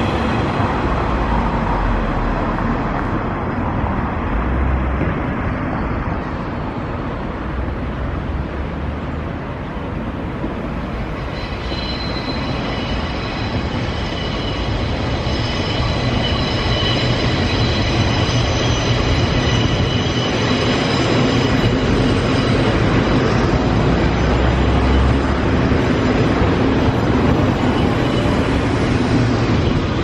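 A JR East 185-series electric express train running along the Tokaido Line, a steady rumble of wheels on rail that dips briefly and swells again. A set of steady high tones joins about twelve seconds in.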